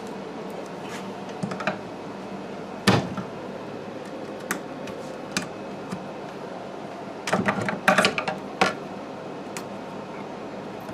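Scattered light clicks and taps of tools and wire being handled at a switch box during electrical wiring. There is a sharper knock about three seconds in and a quick run of clicks around eight seconds in.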